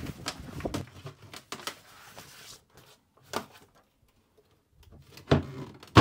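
Paper charts rustling as they are laid into a wooden chart table, with a single light click midway. Near the end the wooden chart-table lid is closed: a thump, then a sharper, louder knock as it shuts.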